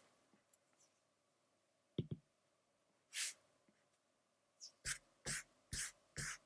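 Faint taps and a short scratch of a stylus on a tablet's glass screen: two quick taps about two seconds in, a brief scratch a second later, then a run of taps about two a second near the end.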